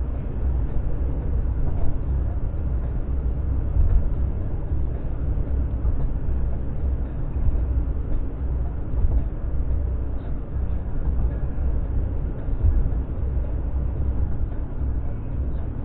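Steady low road rumble of a car at highway speed, tyre and wind noise heard from inside the cabin.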